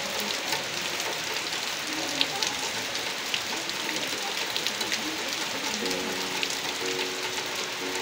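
Steady monsoon rain falling, an even hiss with individual drops heard as separate ticks through it.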